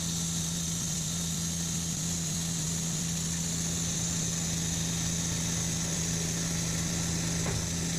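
Bandsaw sawmill's engine running steadily at a constant speed, an even hum.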